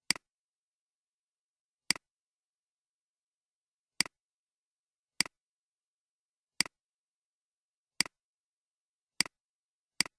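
Computer mouse clicking: eight sharp single clicks at uneven intervals of one to two seconds, each with a faint second tick as the button is released, and dead silence between.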